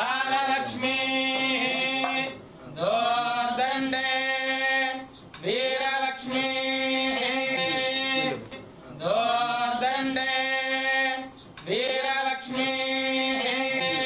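Devotional hymn to the goddess Lakshmi, sung in long held notes. It comes in phrases of about three seconds, each sliding up into its first note, with short breaks between them.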